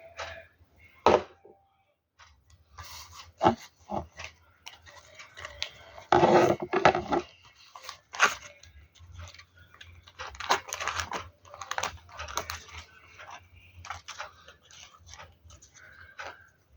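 Paper being handled and worked by hand: irregular crinkling and small knocks, with a longer ripping sound about six seconds in.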